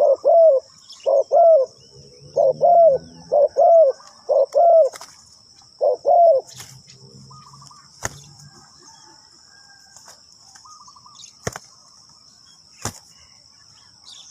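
Spotted dove cooing: a run of short, arched coos, mostly in pairs, for about six seconds before it stops. A steady high-pitched hiss runs underneath, and three sharp clicks come in the second half.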